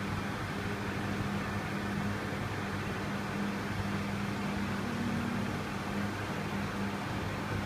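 Lagun FBF 2600 CNC milling machine running: a steady electric hum with an even hiss above it.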